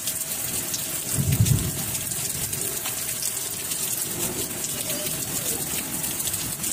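Steady rain hiss with a dense patter of drops, and a brief low thump about a second and a half in.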